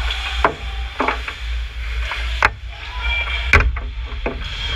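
Hockey sticks and puck clacking on the ice in front of the goal: about six sharp knocks spread over a few seconds, the loudest about three and a half seconds in, over a steady low rumble.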